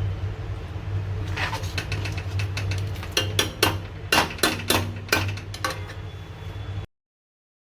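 Metal kitchen utensils clinking and tapping, a dozen or so sharp knocks with a brief ring, over a steady low hum; the sound cuts off abruptly near the end.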